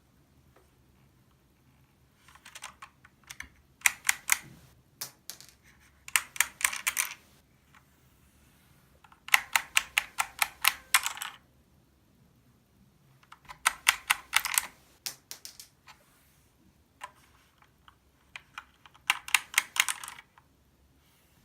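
Corsair K70 LUX RGB mechanical keyboard being typed on in quick bursts of key presses, with pauses of a second or two between bursts.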